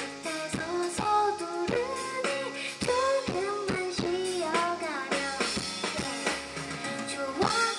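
Live pop music: a woman singing over a stage keyboard and a steady drum beat.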